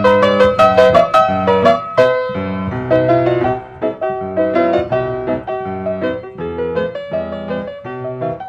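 Solo piano music: a melody of separate notes over chords, busier and louder for the first two seconds, then slower and softer.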